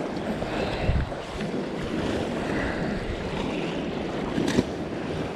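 Shallow river water splashing and lapping as a landing net holding a shovelnose sturgeon is drawn out of the water at a sandy bank, over wind rumbling on the microphone. A low thump comes about a second in, and a sharp knock near the end.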